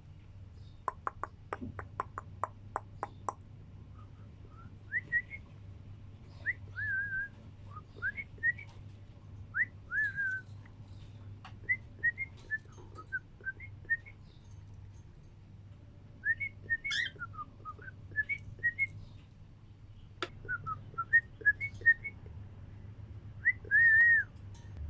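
Cockatiel chirping and whistling: many short whistled notes that rise and fall, in scattered phrases. About a second in there is a quick run of clicks.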